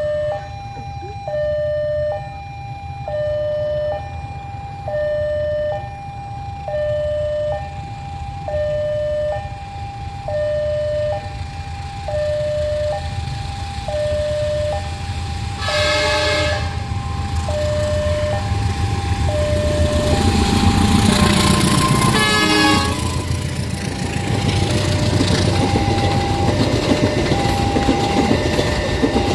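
A two-tone electronic railway warning alarm alternates high and low about once a second over the steady rumble of an approaching diesel locomotive. The locomotive gives a short horn blast about two-thirds of the way in and another a few seconds later, and the train grows louder as it draws near.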